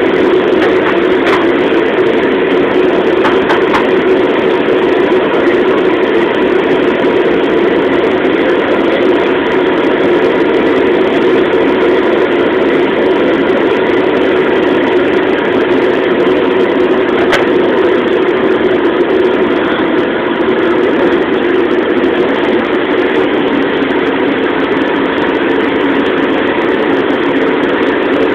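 Commercial wok range's gas burner roaring steadily at full flame under an empty carbon steel wok, heating the new bare wok to season it.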